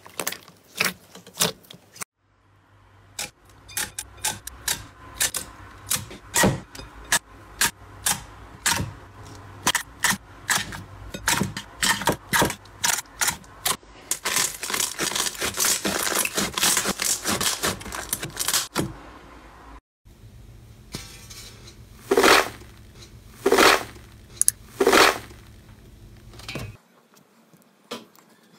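Hands squeezing and pressing slime, with quick sticky clicks and pops. The clicking thickens into a dense crackle about halfway through, then come three loud pops, and it goes quiet near the end.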